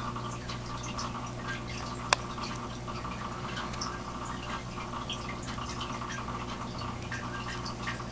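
A steady low hum with faint, irregular dripping or trickling water sounds over it, and a single sharp click about two seconds in.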